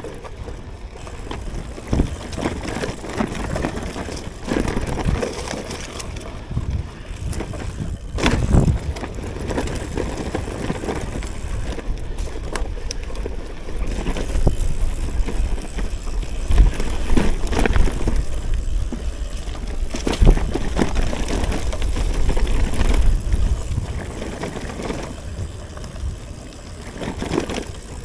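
Cube Cross Race gravel bike rolling over a leaf-strewn forest dirt trail: a steady tyre rumble with bumps and knocks rattling the bike, the sharpest about eight seconds in. Wind buffets the action camera's microphone throughout.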